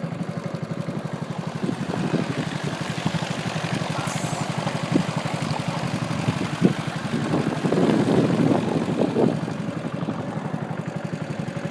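Small boat engine running steadily with a fast, even putter. A louder patch of rushing noise comes in about eight seconds in.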